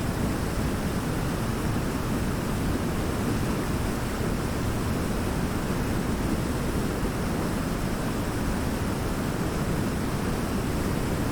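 Waterfall pouring: a steady, even rush of falling water, heaviest in the low range, with no separate splashes or changes.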